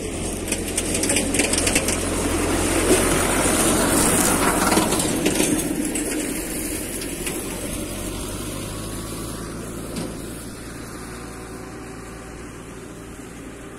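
Türk Fiat 70-56 tractor's diesel engine running under load with its mower cutting dry grass, a steady engine drone under a crackling hiss. It grows louder to a peak about four seconds in, then fades as the tractor moves away.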